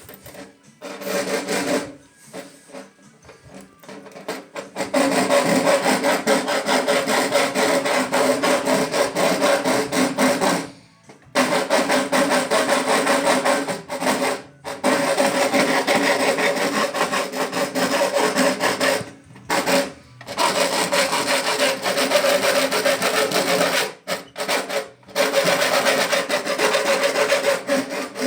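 A power tool working material in long runs of several seconds with short pauses between them: a rough rasping noise over a steady pitched hum.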